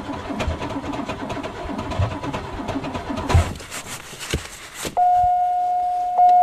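Starter cranking the cold 3.8 V6 of a 1990 Oldsmobile Delta 88, churning unevenly without catching; the car has sat unused for months in sub-zero cold. The cranking stops with a brief louder burst about three and a half seconds in. From about five seconds in, a loud, steady, high-pitched electronic tone sounds.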